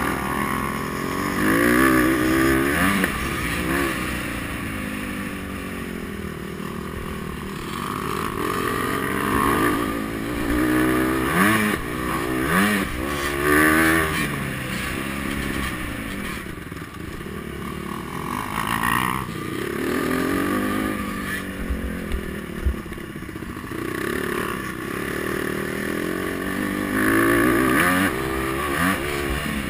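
Honda CRF150R's four-stroke single-cylinder engine revving up and backing off over and over as the dirt bike is ridden round a motocross track, its pitch climbing and dropping every few seconds. It is heard from a camera mounted on the bike, and there is one short knock about two-thirds of the way through.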